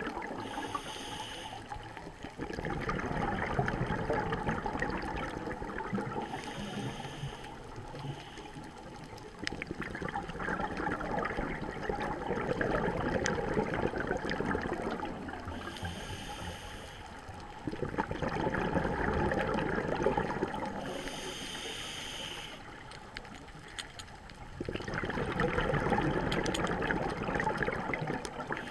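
Scuba diver breathing through a regulator underwater: a short hiss of inhalation about every five to nine seconds, four times, each followed by a long stream of exhaled bubbles.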